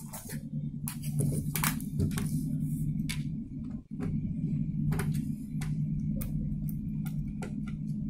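Scattered sharp plastic clicks and taps from a laptop being taken apart by hand, its keyboard and panel parts handled and lifted, over a steady low hum.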